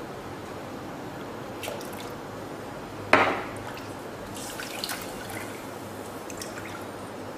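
Soup in a stainless saucepan being stirred: a sharp splash about three seconds in as the spoon goes into the liquid, followed by light clinks of the spoon against the pot and sloshing of the broth.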